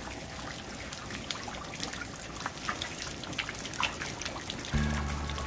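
Rain falling and trickling, with many scattered drops ticking irregularly. A low steady musical tone comes in near the end.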